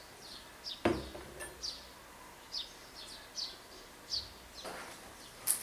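A small bird chirping over and over in short, high, falling notes, roughly one or two a second, with a single knock about a second in.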